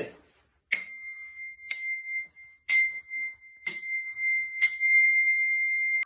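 Glockenspiel notes struck with mallets: five single strikes about a second apart, each ringing on at the same high pitch but with a different bright overtone colour, the same note played on five different glockenspiels in turn.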